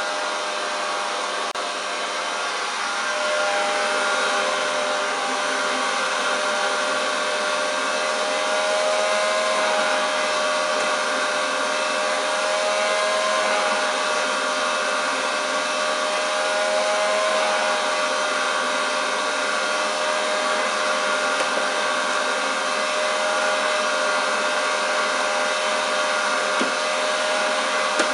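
1935 Hoover Junior 375 vacuum cleaner running steadily with its hose attachment: a steady motor whine whose pitch wavers slightly as the nozzle is worked over the sofa. It gets a little louder about three seconds in.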